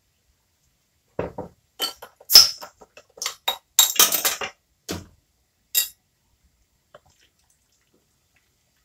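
A run of sharp clinks and knocks as a glass bottle of ale is handled, loudest about two and a half seconds in, over roughly four and a half seconds.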